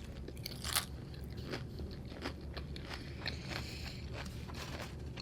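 A person chewing food close to the microphone, with many short crisp crunches and wet mouth clicks.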